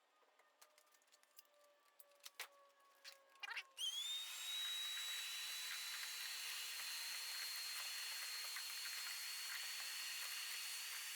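A few light clicks and knocks, then about four seconds in a vacuum cleaner switches on: its motor whine rises quickly to a high pitch and then runs steadily with a rushing hiss, vacuuming debris out of the air filter housing.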